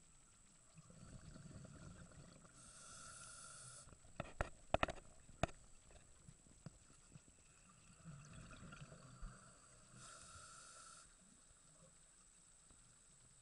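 Scuba breathing through a regulator, heard faintly from underwater: a low bubbling rumble of exhaled bubbles followed by a hiss of inhalation, twice. Around the middle comes a quick run of sharp clicks or knocks, the loudest sounds present.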